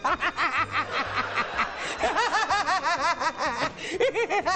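A man laughing hard, a long run of quick, rhythmic ha-ha pulses.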